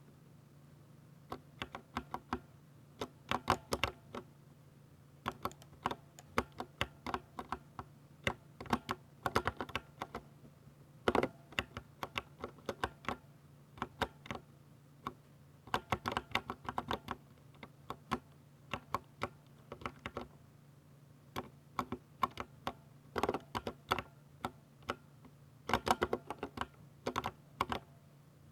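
Typing on a 60% mechanical keyboard with Ducky silver switches: quick runs of sharp key clicks in bursts, with short pauses between them. A faint steady low hum runs underneath.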